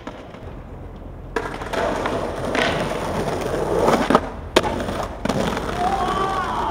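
Skateboard wheels rolling over stone paving with a steady rumble, broken by several sharp clacks and knocks as the board pops and lands on granite steps and ledges.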